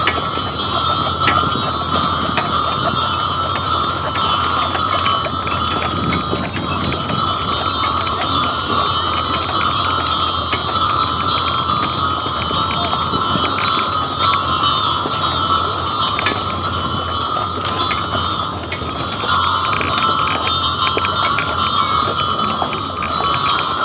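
Harness bells on a team of draft horses jingling steadily as they pull the wagon, over a constant low rumble of the ride on a packed-snow road.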